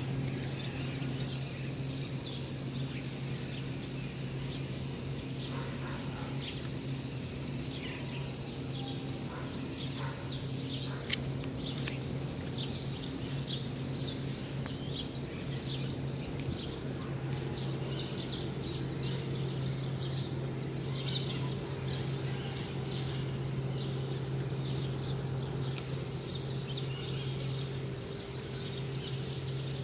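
Dawn chorus of many small birds chirping and trilling, busiest through the middle, over a steady low hum that breaks off briefly near the end.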